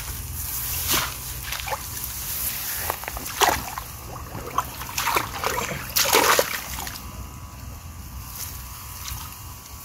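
Water splashing and sloshing in irregular bursts as someone moves through shallow water, the loudest splashes about six seconds in.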